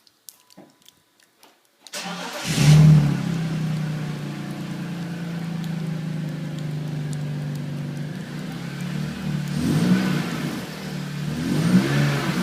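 A 2001 BMW Z3 3.0i inline-six is started about two seconds in through a new Magnaflow cat-back exhaust. It flares briefly, settles into a steady idle, and is blipped twice near the end, each rev rising and falling. The exhaust note sounds a little deeper than stock.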